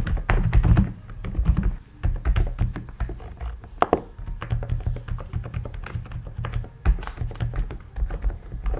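Epomaker TH108 V2 Pro mechanical keyboard being typed on steadily, a fast, uneven run of low, muffled keystrokes, with one sharper click about four seconds in.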